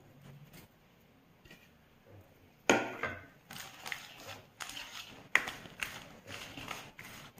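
Wire whisk stirring dry flour and chopped vegetables in a stainless steel mixing bowl, clinking and scraping against the metal sides in sharp, irregular strikes that start a few seconds in.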